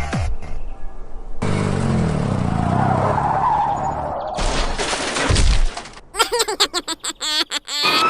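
Cartoon vehicle sound effects: a car engine running with tyres skidding, then a burst of noise and a run of choppy, stuttering effects near the end.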